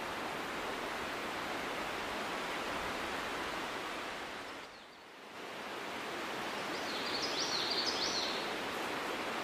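Steady outdoor background noise, an even hiss that dips briefly about five seconds in, with a quick run of high chirps about seven to eight seconds in.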